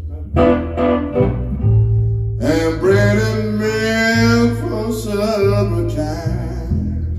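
Acoustic guitar and upright double bass playing a song together, with held low bass notes. A man sings a long line over them from about a third of the way in to near the end.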